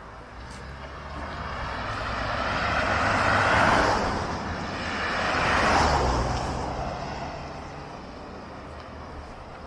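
Two vehicles passing close by on the road one after the other, their tyre and engine noise swelling up and fading away. The first is loudest about three and a half seconds in, the second about six seconds in.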